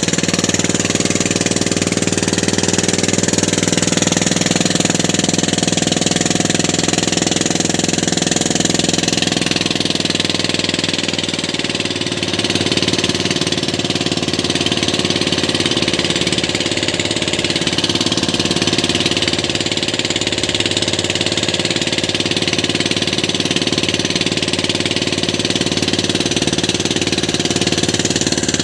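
Outrigger fishing boat's inboard engine running steadily. About twelve seconds in, its note changes as the lowest tone drops away.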